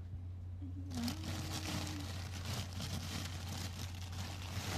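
Plastic bags of salad greens rustling and crinkling as a hand handles them in a refrigerator, starting about a second in, over a steady low hum.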